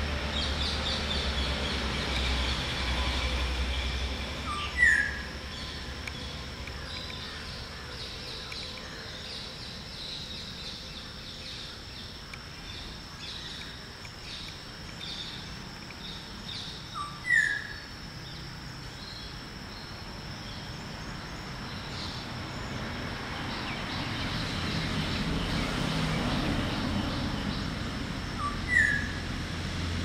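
Black-hooded oriole giving a short whistled call three times, about twelve seconds apart, each a brief lower note followed by a falling one. Faint high chirping of small birds and a steady low rumble run underneath.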